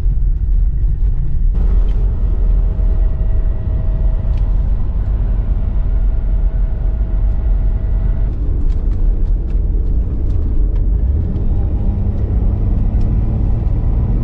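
A car on the move: steady low road and engine rumble, with a faint steady whine that shifts about a second and a half in and fades out a little past halfway.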